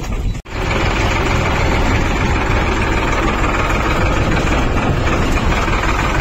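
Tractor engine running steadily. It starts abruptly about half a second in.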